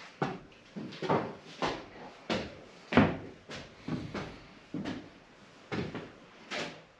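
Footsteps thudding on a wooden loft floor, a dull knock every half second to a second, echoing in the open room.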